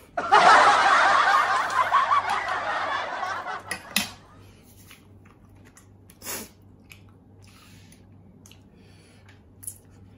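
A person laughing loudly for about three and a half seconds, then a sharp click and a few faint knocks.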